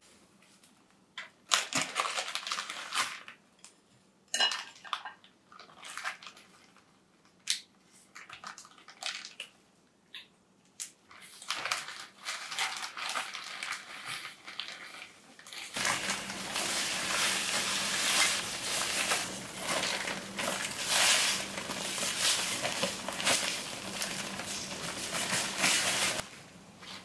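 Plastic zip bag crinkling in short bursts as fried doughnuts are dropped into it with chopsticks, then, about sixteen seconds in, the bag is shaken steadily for around ten seconds, the sugar inside rustling as it coats the doughnut.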